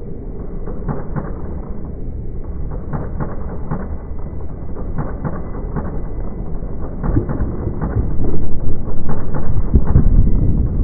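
Competition-hall sound slowed down along with the slow-motion picture, heard as a deep rumble full of dull knocks; it grows louder about eight seconds in.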